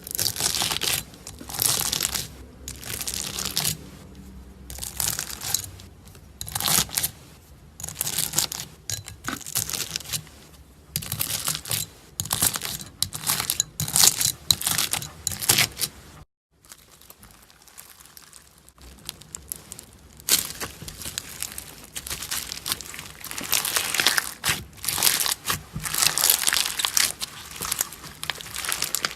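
Slime being handled by hand: irregular bursts of sticky, crinkly noise as it is pressed and pulled. The sound drops out briefly about halfway, then another slime takes over.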